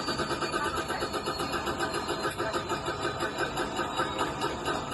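Helicopter engine and rotor still running with an even, rapid pulsing, several beats a second, heard from inside the cabin of the crashed aircraft.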